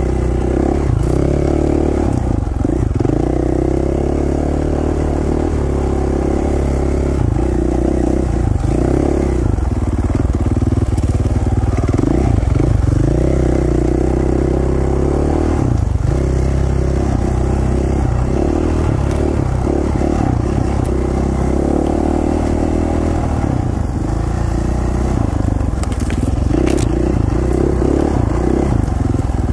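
Dirt bike engine running on a single-track trail, its pitch rising and falling with the throttle. A few sharp knocks come near the end.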